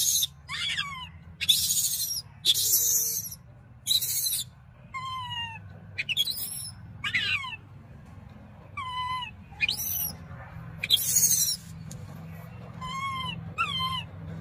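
Infant macaque crying in distress at being weaned: about a dozen calls in a row, harsh shrill screams mixed with high, whining cries that rise and then fall in pitch.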